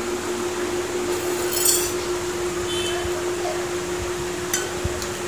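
Metal tableware clinking as a meal is eaten by hand from steel plates: one sharp ringing clink about a second and a half in, a fainter one near three seconds, and a short tick near the end, over a steady hum.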